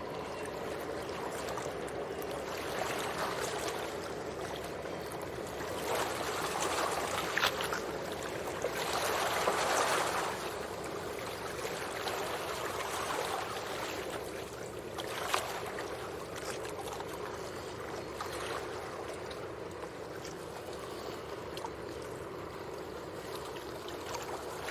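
Stream water flowing steadily, with the rush swelling briefly near the middle and a couple of sharper splashes.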